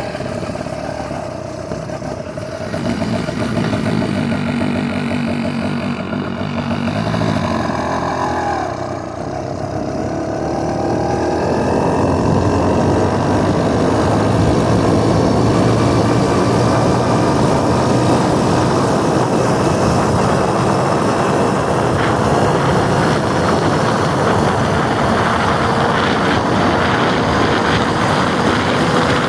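Motorized bicycle's small gas engine running, steady at first, then its pitch climbing slowly from about ten seconds in as the bike picks up speed.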